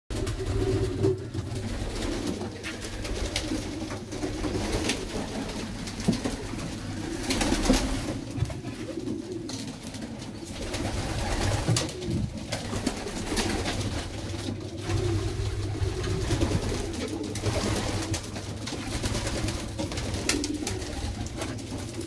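Domestic pigeons cooing over and over, low wavering coos with a steady low hum underneath and occasional small clicks.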